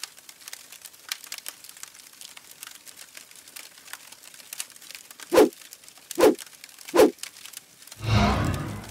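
Sound-effect fire crackling throughout, with three sharp hits a little under a second apart past the middle, then a deep whoosh swelling near the end.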